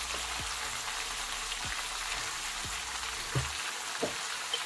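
Chicken and chopped vegetables sizzling steadily in a pan over low heat, cooking in their own fat, with a few light clicks near the end.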